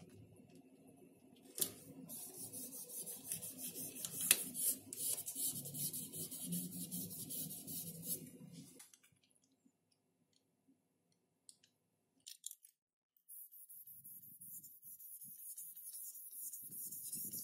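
Plastic packing tape being smoothed and rubbed down onto a Depron foam board: a rustling, hissing rub for several seconds, a pause with a few small clicks, then more rubbing near the end.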